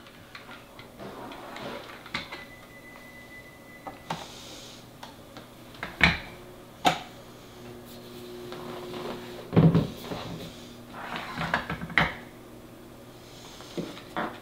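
Hard plastic parts being handled and set down on a wooden desk: scattered clicks and knocks, with a few sharp single clicks and a cluster of knocks in the middle.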